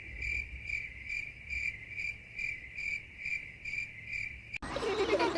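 Cricket chirping in a steady, regular rhythm of a little over two chirps a second. The chirping cuts off abruptly about four and a half seconds in, giving way to other sounds.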